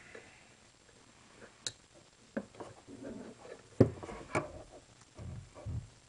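Light handling noises: a few separate sharp clicks and taps with soft rustling in between, from fingers working a stick-on power button on a paintball marker's grip.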